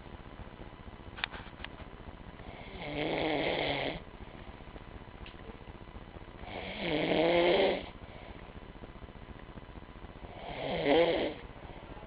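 A man snoring in his sleep: three snores, each about a second or so long, coming roughly every four seconds.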